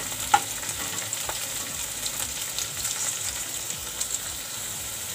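Chopped okra sizzling as it fries in oil in a nonstick kadhai, with a steady crackling hiss. A metal spatula stirs and scrapes the pan, with one sharp knock against it about half a second in and a few lighter clicks later.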